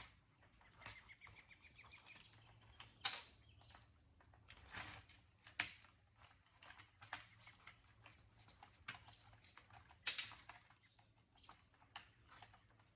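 Faint, scattered clicks and light clatter of screws and small metal and plastic parts being handled as a home theater unit is taken apart by hand, with a quick run of small ticks about a second in.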